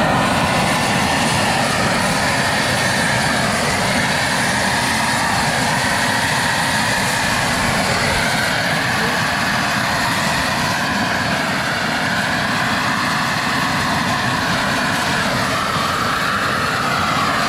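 Pressure washer running with its steam-cleaning lance spraying: a loud, steady rushing noise over a low rumble.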